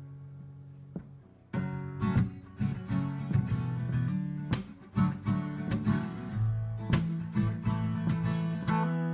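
Instrumental music between sung lines: a held chord fades, then guitar strumming starts about a second and a half in and keeps a steady rhythm.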